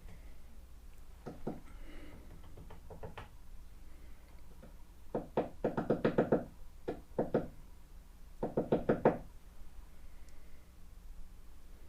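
Woodpecker pecking on a house's wooden siding, heard from indoors: about five quick bursts of rapid knocks, the longest and loudest a little past halfway.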